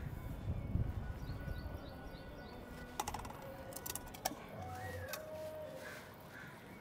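Small birds chirping repeatedly in short high notes, with a low rumble in the first second and two sharp clicks about three and four seconds in.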